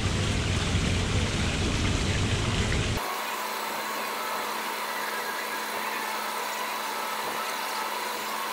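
Wind rumbling on the microphone, then an abrupt cut about three seconds in to a steady machine-like hum with a few held tones: the sped-up sound of a time-lapse played at ten times speed.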